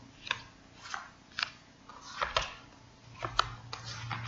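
Tarot cards being handled and laid out on a table: a series of light, irregular snaps and clicks as cards are flicked from the deck and set down.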